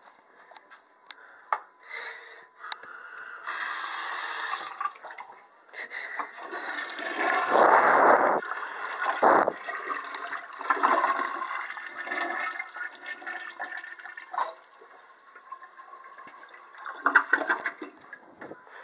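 Toilet flushing: a rush of water that builds a few seconds in, is loudest around the middle and tails off. A short clatter of knocks near the end.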